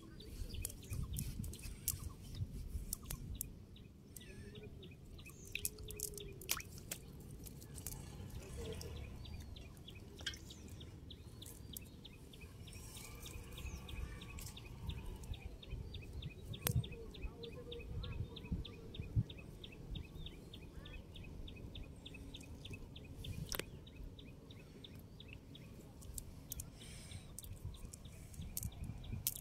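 Hands working a wet cast net on the ground, with rustling, handling knocks, clicks and drips of water. A rapid, evenly repeated chirping runs in the background through much of the middle.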